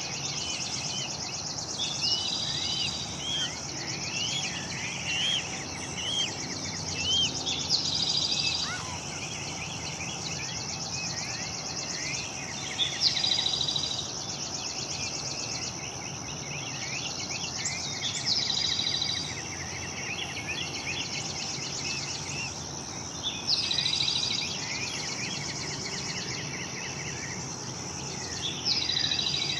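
A steady, high, finely pulsing chorus of insects, with songbirds chirping over it. One bird repeats the same short phrase about every five seconds.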